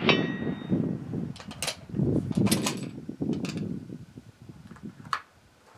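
A steel target rings faintly at the very start, a short metallic ring arriving well after the .308 rifle shot. Then the bolt of a Savage 10FP-LE bolt-action rifle is worked: a run of sharp metallic clicks and clacks, with one more click about five seconds in.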